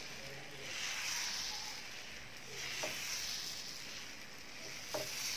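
Maida dosa batter sizzling faintly on a hot non-stick pan as a steel ladle spreads it in circles; the hiss swells and fades about every two seconds, with a couple of light ticks.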